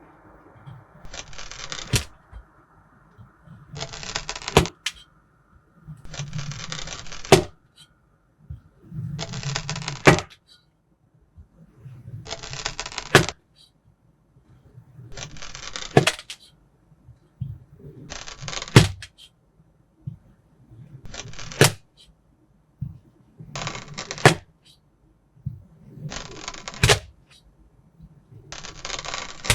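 Kinetic sand being cut again and again: each cut is a crunchy scrape of about a second that ends in a sharp click, about every two and a half seconds.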